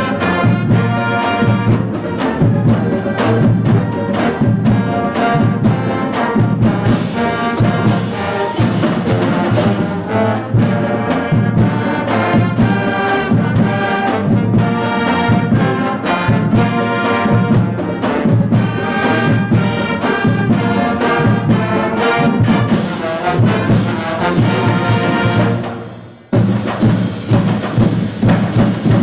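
School concert band playing a medley of the armed forces' service songs, led by brass with percussion. Near the end the music drops away briefly and a new section starts.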